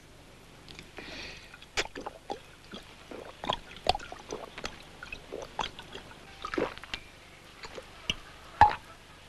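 A man gulping pálinka (fruit brandy) straight from the bottle in one breath: repeated, irregular swallows with liquid gurgling, a louder one near the end.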